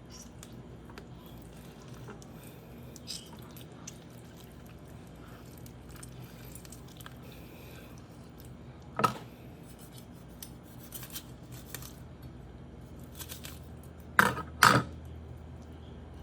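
Kitchen knocks and clinks from cutting up a chicken: small clicks and handling sounds, one sharp knock about nine seconds in and two louder knocks in quick succession near the end, over a faint steady hum.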